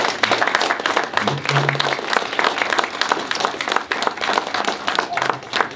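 A small audience applauding, a dense patter of many hands clapping.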